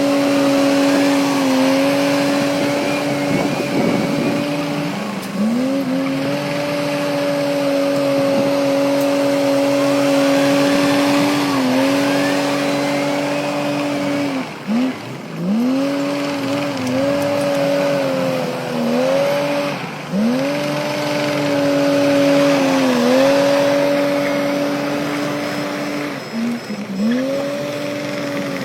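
Heavy diesel engine of earthmoving machinery running hard, its pitch dipping briefly and recovering again and again, as under load, with a rough mechanical clatter above it.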